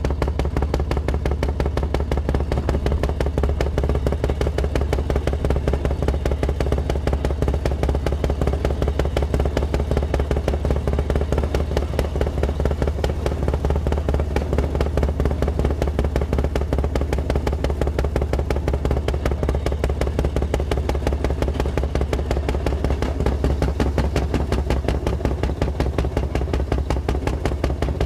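Rail speeder's small engine running steadily as it travels along the track, a fast even putter of firing strokes with no change in speed.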